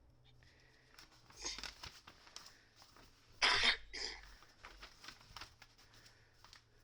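A person coughs once about three and a half seconds in, amid faint handling and rustling noises.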